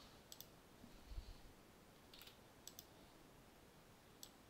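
Faint computer mouse clicks, a few single ones and some in quick pairs, over near silence, with a soft low bump about a second in.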